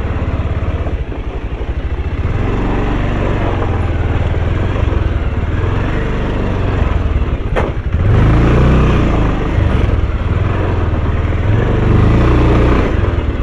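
Motorcycle engine running as the bike is ridden slowly over a muddy, rock-strewn track. The throttle opens for a louder stretch from about eight seconds in, just after a single sharp knock.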